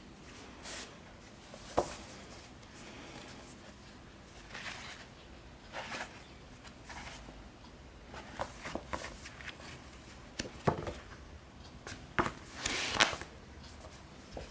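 Paperback manga volumes being handled: paper rustling and riffling, with light clicks and taps as the books are moved and set down, and a longer rustle near the end.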